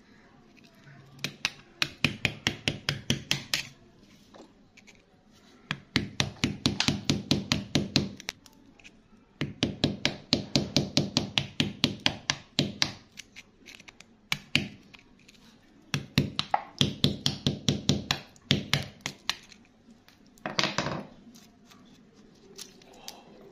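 Rapid tapping and scraping of a pointed stick picking at wet gravel around an embedded stone, about five taps a second, in several bursts of two to four seconds with short pauses between them.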